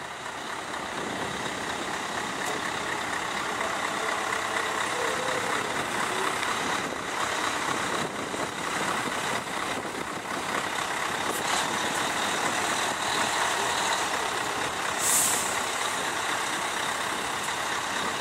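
Heavy trucks running with a steady, dense engine and traffic noise. A short air-brake hiss comes about 15 seconds in.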